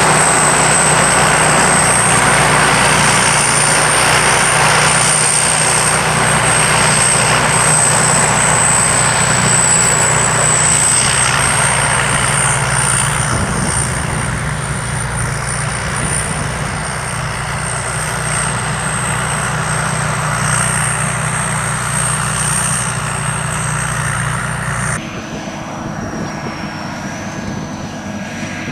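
A combine harvester's five-cylinder engine and machinery running steadily, with a thin high whine over the noise. About 25 s in the sound drops abruptly to a quieter version, with a slightly lower whine.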